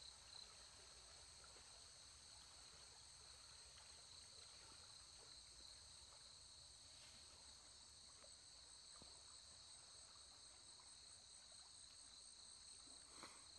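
Near silence with a faint, steady high-pitched insect chorus.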